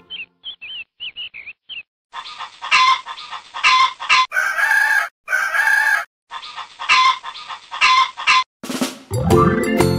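Chicken sounds: a quick run of short, high chick peeps, then hen clucking, two longer, louder calls near the middle, and more clucking. Music comes back in near the end.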